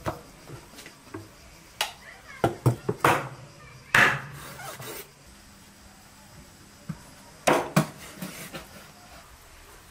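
Large kitchen knife chopping raw whole chickens on a wooden cutting board: irregular sharp knocks, several in quick succession in the first four seconds and two more near the end, with some rubbing as the birds are handled.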